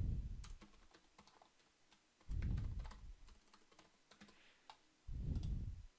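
Typing on a computer keyboard: a run of light, quick key clicks. Three low, muffled rumbles stand out, at the start, about two seconds in, and about five seconds in.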